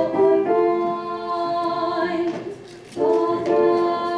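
A choir singing, several voices holding long sustained chords, with a short break about two and a half seconds in before the next phrase begins.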